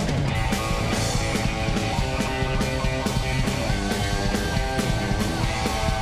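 Psychobilly band playing live: electric guitar and drums with a steady beat.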